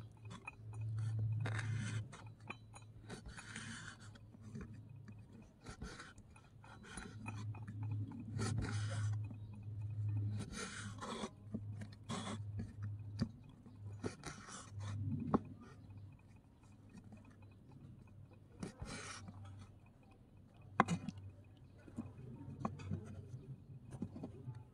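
Small knife cutting raw octopus tentacles on a miniature wooden cutting board: irregular slicing strokes with sharp taps of the blade against the wood, and the blade scraping pieces across the board near the end.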